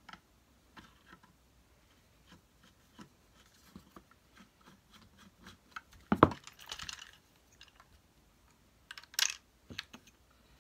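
Small clicks and taps of a screwdriver and hands working on a Hoover Turbo Power vacuum cleaner motor as it is taken apart. A louder knock comes about six seconds in, followed by a short scraping rustle, and a sharp clatter just after nine seconds.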